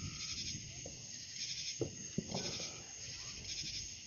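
Steady, high-pitched chorus of night insects, with a couple of faint short pops about two seconds in.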